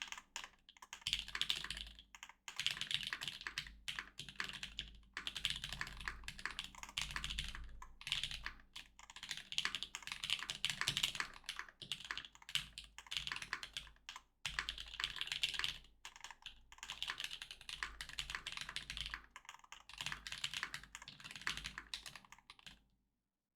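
Fast typing on a Satisfaction 75 R2 mechanical keyboard with JWick Black linear switches, GMK Cafe doubleshot ABS keycaps and a half FR4 plate. It is a dense, steady run of key strikes with a few brief pauses, and it stops shortly before the end.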